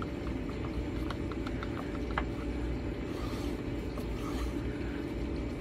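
Wooden stir stick stirring thick white acrylic pouring paint in a plastic cup, with light ticks against the cup wall several times a second, mostly in the first half, over a steady low background hum.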